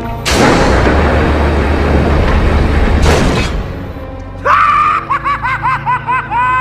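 A loud blast-like rush with a deep rumble, lasting about three seconds, over background score. Then, from about four and a half seconds in, a high-pitched cackling laugh in quick repeated bursts.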